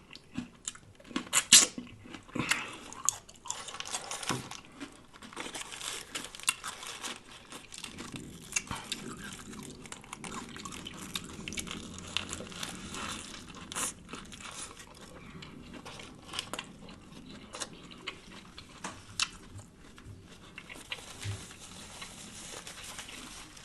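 Close-miked eating: chewing and crunching on a lettuce-wrapped sub sandwich, with scattered sharp clicks and crinkles.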